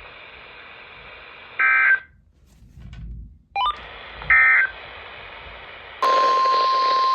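NOAA Weather Radio broadcast over steady radio hiss. About 1.6 s in comes a short burst of EAS/SAME digital data tones, the end-of-message code of the warning just read, and after a brief dropout a second short data burst follows. About six seconds in, the steady 1,050 Hz warning alarm tone sounds, announcing the next warning.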